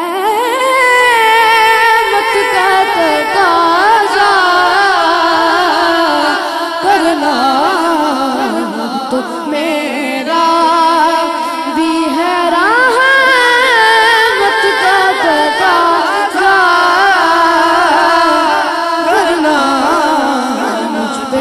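A boy's solo voice singing a naat, an Urdu devotional song, through a microphone, in long flowing phrases with gliding, ornamented notes over a steady held tone beneath.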